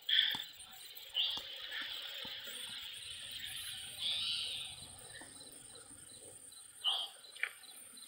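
Outdoor ambience of insects chirping: a steady high hum with short, louder chirps every second or few.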